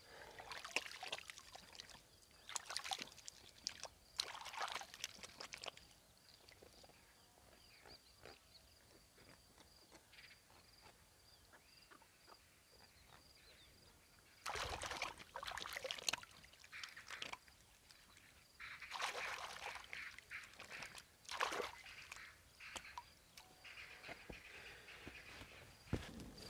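Crickets chirping in a steady, pulsing high trill, broken by several bursts of camp-work handling noise, with rustling and sloshing, about 15 and 20 seconds in being the loudest.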